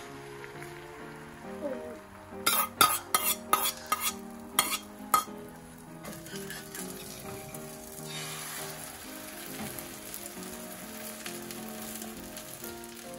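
Beaten egg frying in a cast-iron pan, sizzling more strongly from about eight seconds in. A couple of seconds in comes a quick run of about eight sharp taps of the metal spoon. Background music plays.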